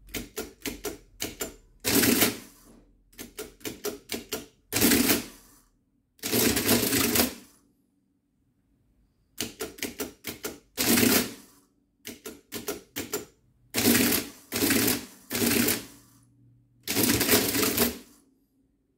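Lagomarsino Totalia 2361 electromechanical adding machine, running without its body. Number keys click in quick groups, and each group is followed by a short burst of the motor-driven mechanism as it cycles to add or subtract. A longer run follows as the result is printed. In the second half, three cycles come back to back as the same number is added over and over before the final total run.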